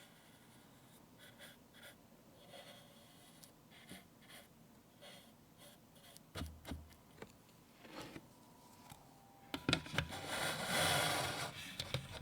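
Hands handling toys and painting things: scattered small clicks and taps, a soft thump about halfway, and a longer rubbing noise near the end.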